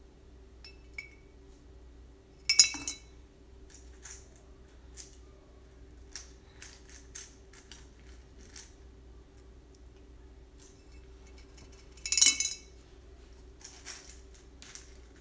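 Coins dropped one at a time into a piggy bank, clinking against the coins already inside. There are two loud ringing clinks, one about two and a half seconds in and one about twelve seconds in, with many lighter clicks and taps between them.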